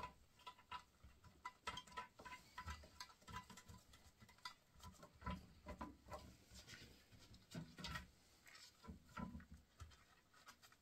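Faint, irregular small clicks and scrapes of fixing nuts being threaded on by hand at the back of a ceramic macerator toilet, dying away near the end.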